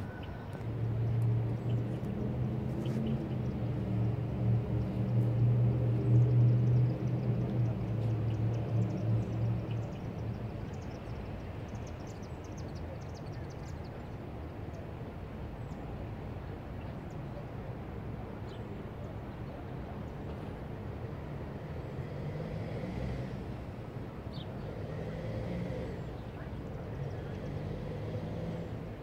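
An engine running with a steady hum, loudest for about the first ten seconds, then fading into a quieter steady background.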